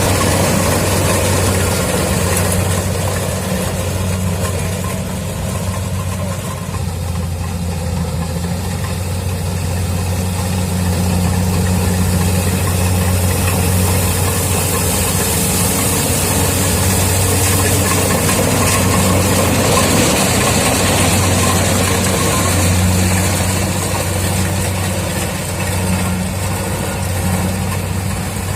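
Kubota DC-70 Plus rice combine harvester running: its diesel engine gives a steady, unbroken drone, with a high hiss over it.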